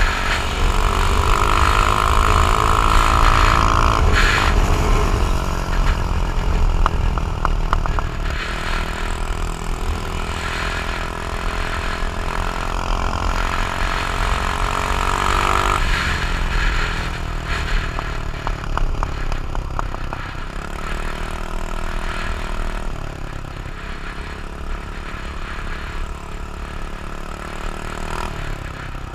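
Icebear Maddog 150cc scooter engine running at speed on a ride, with a high whine that climbs and holds twice as it pulls, under heavy wind buffeting on the microphone. The scooter is fitted with a new no-rev-limit CDI. The wind rumble and overall loudness ease near the end as it slows.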